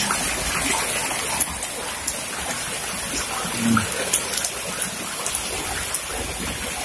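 Heavy rain pouring steadily onto wet, flooded paving, with scattered individual drops ticking close by.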